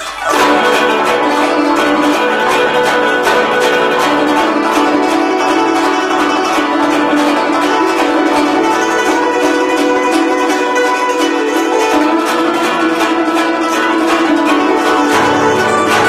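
Guzheng played fast with finger picks: dense, rapid plucked notes and sweeps across the strings, coming in suddenly and loudly right at the start.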